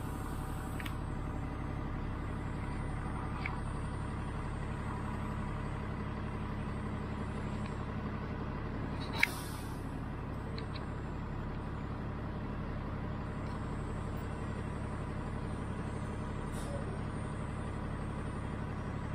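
Steady hum of a city bus heard from inside the cabin while the bus is nearly stopped. About nine seconds in comes one sharp click and a short hiss of air from the bus's air system.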